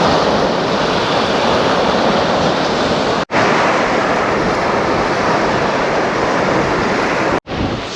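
Loud, steady rush of wind buffeting the microphone mixed with surf washing on the beach, broken twice by brief silent gaps.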